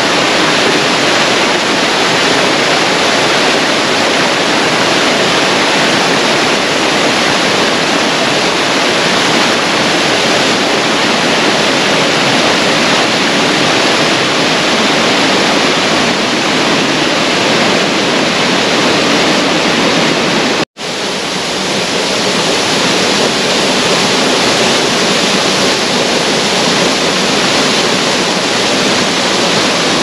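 Steady rushing of falling water from the cascades of the Ripaljka waterfall on the Gradašnica river. The sound cuts out for an instant about two-thirds of the way through, then comes straight back.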